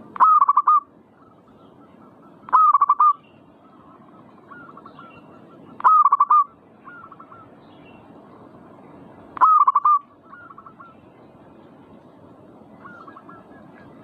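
Zebra dove (perkutut) cooing: four loud calls of quick, staccato cooing notes, a few seconds apart, with fainter, shorter coos between them.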